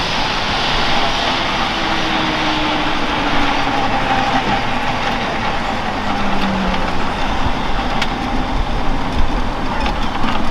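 Eurocopter EC135 P2 helicopter on the ground with its twin turbine engines running and the main rotor turning slowly: a steady turbine hiss and whine, with a faint lower tone that slowly falls in pitch.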